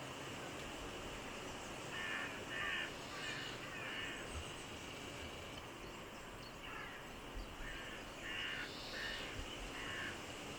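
A bird giving two series of short, harsh calls, four in the first series and five in the second a few seconds later, over a steady background hiss.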